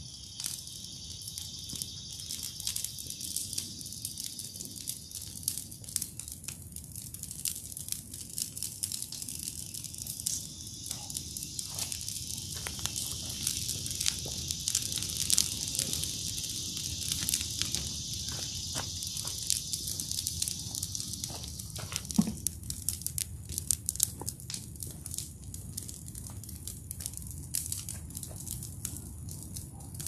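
Burning brush pile crackling, with frequent sharp pops and snaps from the burning branches. Beneath it runs a steady high-pitched hiss that fades out about two-thirds of the way through.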